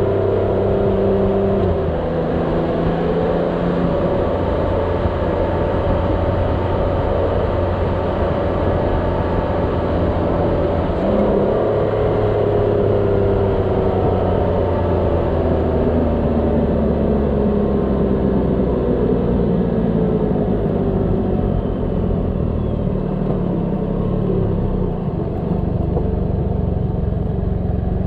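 Motorcycle engine running at road speed under steady wind and tyre noise, its note changing a couple of times and then falling in pitch as the bike slows down.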